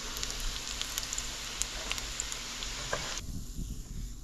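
Crab cakes frying in olive oil in a stainless steel skillet: a steady sizzle with scattered sharp pops, which cuts off suddenly about three seconds in.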